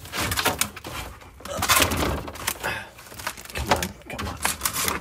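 Hands rummaging through a crowded refrigerator shelf: plastic food containers and packages knocking, clattering and rustling as they are shoved aside to reach a plastic milk jug, with a burst of louder clatter a little under two seconds in.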